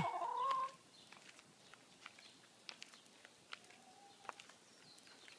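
Brown hens walking on concrete: light scattered taps of their feet, after a loud hen call that ends with a rising squawk in the first second, and a faint short hen note around four seconds in.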